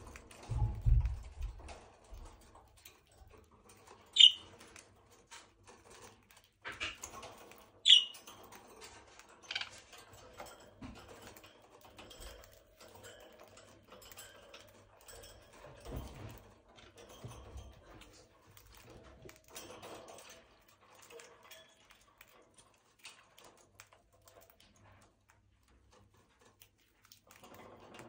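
Budgerigars in a wire cage making small clicking, scratching and pecking sounds with beaks and feet on millet spray and cage wire, with two short high chirps about four and eight seconds in.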